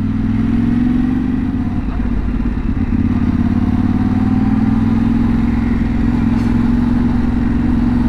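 Yamaha 689 cc parallel-twin motorcycle engine running at low road speed, heard from the rider's own bike. The engine note is steady, wavering briefly about two to three seconds in before settling again.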